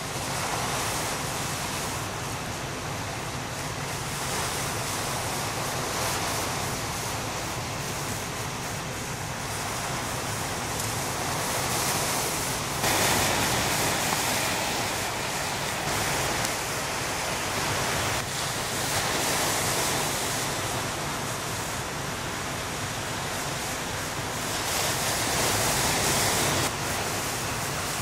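Lake Superior waves breaking on the shore: a steady rush of surf that swells louder about halfway through and again near the end.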